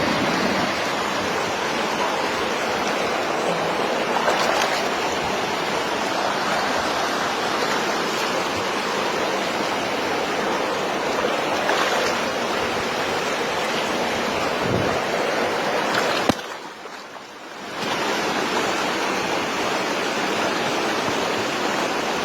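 Steady rush of flowing water, an even hiss-like noise of a stream or rapids, briefly dropping away about sixteen seconds in before returning.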